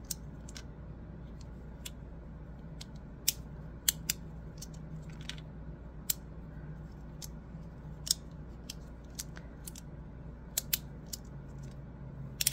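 Magnetic fidget slider clicking as its plates are slid and snap into the next magnetic position: irregular sharp clicks, roughly one a second.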